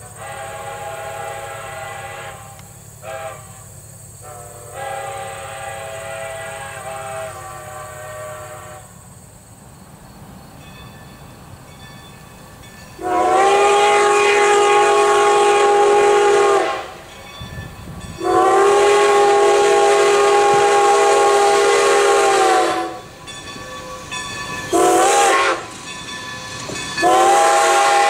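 Whistle of a 1924 Baldwin 2-10-0 steam locomotive, Strasburg Rail Road No. 90, blowing a long-long-short-long grade-crossing signal. A fainter run of blasts comes first, then the signal sounds loud and close as the engine nears, over the low rumble of the train.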